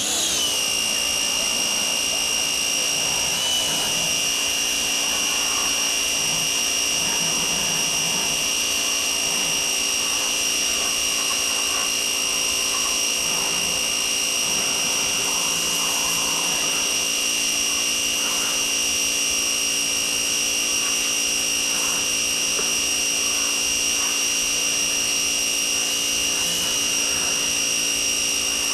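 Pressure washer running steadily with a constant high-pitched whine.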